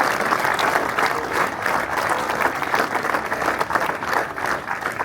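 Audience applauding steadily, many people clapping together, easing off slightly near the end.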